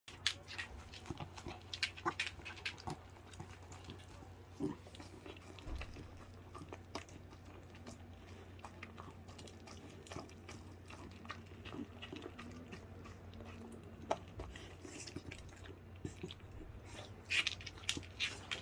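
A dog chewing and biting food with wet mouth sounds and frequent small clicks. The clicks are busiest at the start and again near the end, over a steady low hum.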